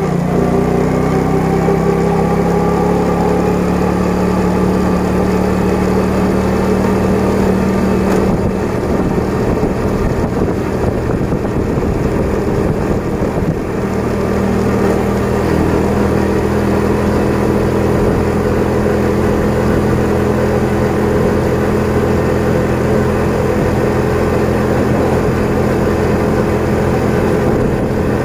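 An engine running steadily at a constant speed, its pitch rising slightly at the start and shifting a little a few times.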